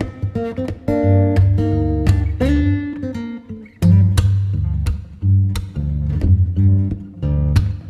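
Background music led by plucked guitar, with a repeating low bass line.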